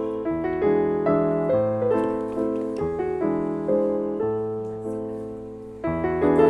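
Background piano music: a gentle tune of single notes over low held chords, turning louder just before the end.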